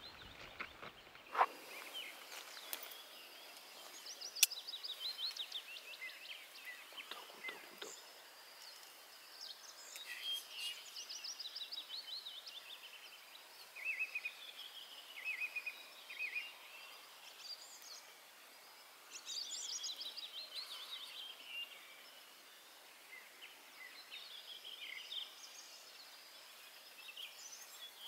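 Wild birds chirping and singing, with many short calls and quick runs of repeated high notes one after another. Two sharp clicks sound near the start.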